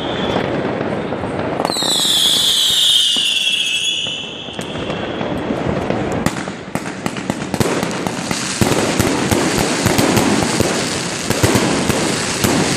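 New Year's Eve fireworks: a whistling firework shrieks with its pitch sliding downward about two seconds in, then a dense, rapid crackling and popping of firecrackers takes over from about six seconds on.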